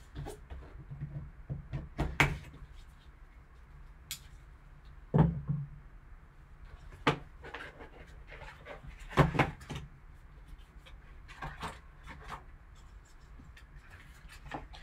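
Hands handling a cardboard trading-card box: a folding knife slitting its seal stickers, then the box lifted, opened and set down on the table. It is heard as scattered knocks, taps and scrapes, a few with a dull thud.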